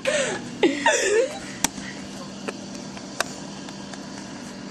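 A brief voice sound, then a few separate sharp clicks over a steady low hum.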